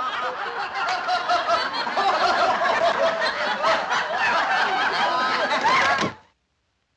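A crowd of many voices snickering and chuckling together, overlapping throughout, then cutting off suddenly about six seconds in.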